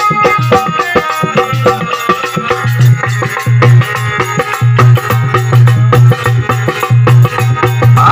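Loud Indian folk devotional music, instrumental: a busy melody of short notes over a steady, driving drum beat, with no singing.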